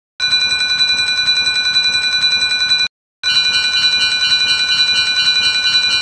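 Electronic railroad crossing warning bell ringing in a fast, even pulse, in two runs of about three seconds each with a brief break in the middle.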